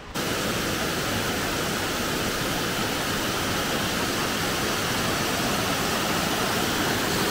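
Amicalola Falls, a waterfall, giving a steady, loud rush of falling water that cuts in suddenly just after the start.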